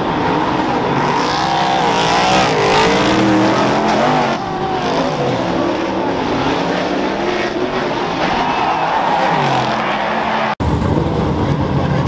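Superstock speedway cars racing, their V8 engines revving up and down in pitch as they power round the dirt oval and pass. After a short break about ten and a half seconds in, a single nearby engine runs with a deeper sound.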